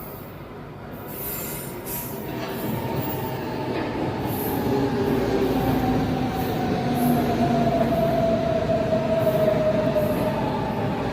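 São Paulo Metro train on Line 3-Red pulling in, its running noise growing louder over the first few seconds and then holding. A whine slides slowly down in pitch in the second half as the train slows.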